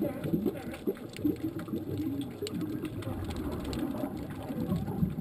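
Underwater sound near a swimming California sea lion: an uneven, low gurgling and bubbling with short low calls and a few faint clicks.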